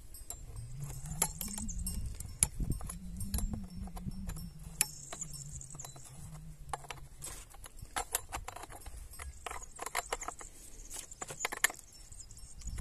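Metal clicks, ticks and scrapes of a chainsaw combination wrench working on a Stihl chainsaw: tightening the guide-bar nut, then turning the chain-tensioning screw, with the chain links rattling against the bar. A low drone that rises and falls runs under the first half and stops about seven seconds in.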